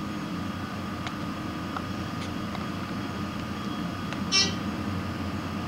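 Dover hydraulic elevator cab running downward: a steady low rumble with a faint steady whine, and a brief high-pitched chirp about four seconds in.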